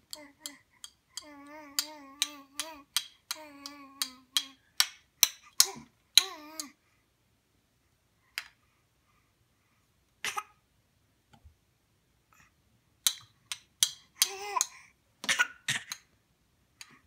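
A baby's voice in a held, wavering coo early on, with a short squeal later. Over it come quick runs of sharp plastic clacks from small toy balls knocked together; the clacks stop for a few seconds in the middle, then start again.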